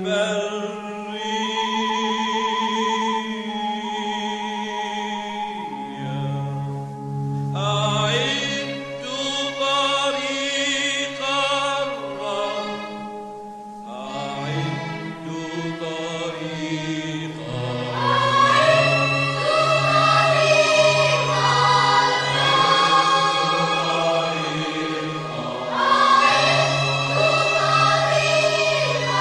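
Mixed choir of women's and men's voices singing a sacred choral piece: long held chords at first, the parts moving more about seven seconds in and the sound growing fuller and louder from about eighteen seconds.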